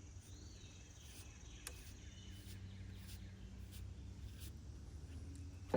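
Quiet outdoor ambience: a steady low hum with faint bird chirps.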